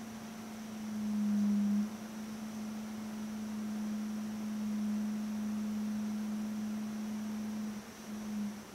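A steady low pure tone that swells louder about a second in and wavers slightly in pitch near the end, with a faint high steady whine above it.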